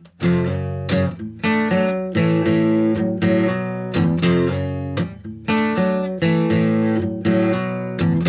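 Acoustic guitar strumming chords as a song's instrumental intro, starting at once with a run of repeated strokes.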